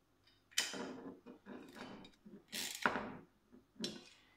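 Metal parts clinking and scraping as a metal tail-tidy bracket is handled and its bolt tightened with a T-handle Allen key and socket driver: a series of short rattles and knocks, the loudest a little before three seconds in.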